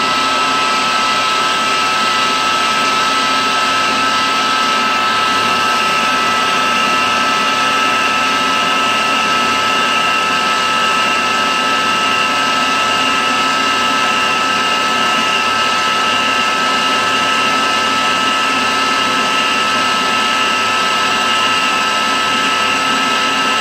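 CNC milling machine spindle running steadily while an end mill cuts along the inside pocket wall of a cast iron part: a constant mechanical whine with steady high tones and no change in pace.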